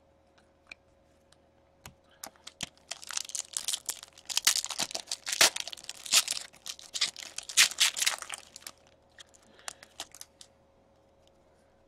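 A foil trading-card pack being torn open and its wrapper crinkled: a dense crackling from about three seconds in until about eight and a half seconds, with scattered light clicks of card and wrapper handling before and after.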